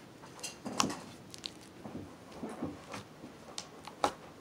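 Slime being squeezed and worked between the fingers close to the microphone: soft squelches and small sharp pops, the loudest about a second in and near the end.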